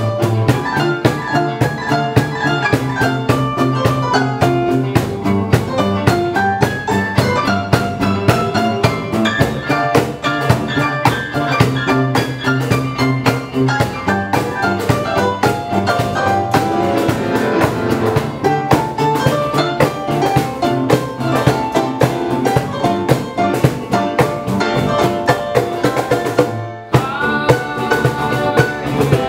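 Instrumental band passage led by a Roland RD-300GX digital stage piano playing chords and a melody over a steady percussion beat. Near the end the music breaks off for a moment, then comes back in.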